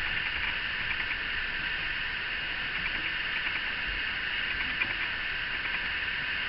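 Steady high-pitched background hiss with no distinct events.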